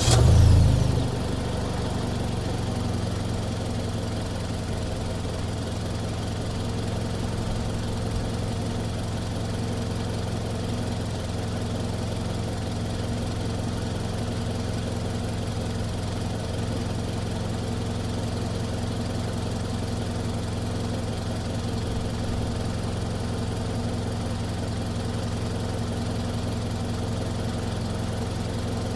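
Mazda CX-5 engine, heard from outside at the front, flaring briefly as it catches from a start, then settling within about a second into a steady idle.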